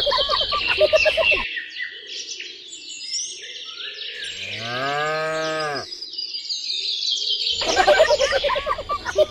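Cattle mooing over steady birdsong chirping: a wavering call at the start, one long moo that rises and falls in the middle, and another wavering call near the end.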